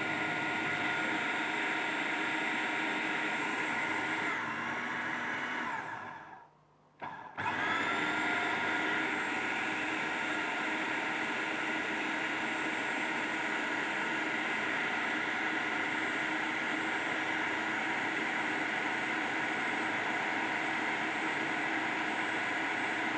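Electric food processor grinding blanched almonds and hazelnuts to a fine meal, its motor running with a steady whine. About five seconds in the whine winds down and cuts out, then the motor starts again a second later and runs steadily.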